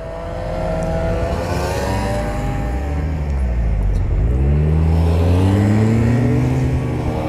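Several snowmobiles riding past one after another, their engine pitch sinking to a low point around the middle and then climbing again, growing louder in the second half.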